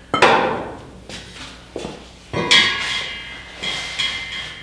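A few sharp metallic clanks, then electronic background music starts about two and a half seconds in.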